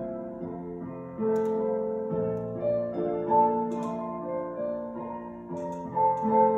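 Solo piano music, with a new chord struck about every second.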